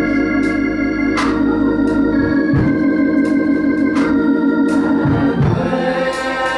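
Church organ music: the organ holds a long chord with a fast, even wobble for several seconds, with a few sharp percussion hits scattered over it, then moves to a new chord near the end.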